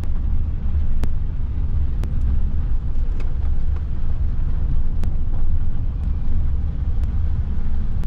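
Car driving along a rough dirt road, heard from the cargo area with the rear hatch open: a steady low rumble of road and wind noise, with a few sharp knocks scattered through it.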